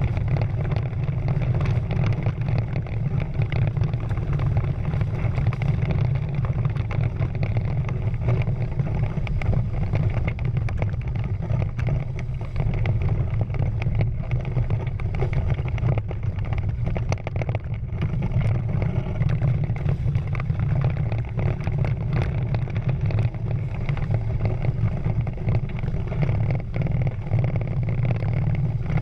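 Water rushing and spraying along the hull of a Prindle 16 catamaran sailing fast, with wind on the camera microphone, heard as a steady low rumble.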